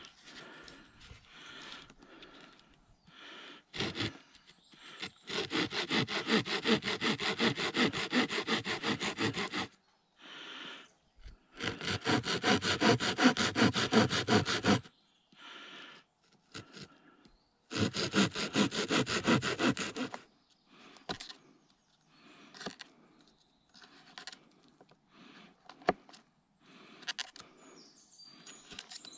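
Handsaw cutting into a wooden pole in three runs of quick back-and-forth strokes, with short scrapes and knocks of wood between and after them.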